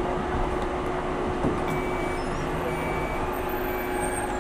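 Bus idling at a bus stop: a steady low engine rumble with a constant hum, and two short high-pitched beeps about a second apart midway through.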